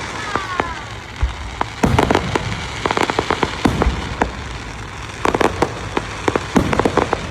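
Fireworks exploding in clusters of sharp pops and bangs, a few each second in bursts, over a steady crackling hiss, with a couple of brief falling whistles just after the start.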